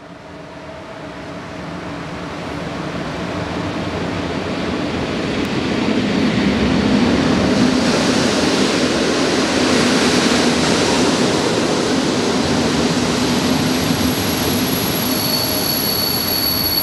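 An EP07 electric locomotive and its passenger coaches pull into the platform. The rumble of wheels and running gear swells over the first several seconds, then holds steady as the coaches pass. Near the end a high, steady squeal of the wheels sets in as the train brakes to a stop.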